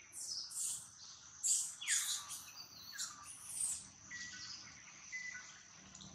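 Forest sounds: a string of short, high animal calls, several sweeping down in pitch and a few shrill squeaks, over a steady high-pitched insect drone.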